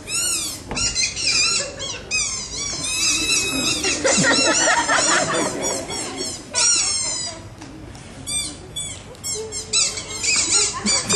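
Many overlapping high-pitched bird-like chirps and whistles, each a quick rising-and-falling sweep, repeating in rapid flurries, with a short thinning about seven seconds in.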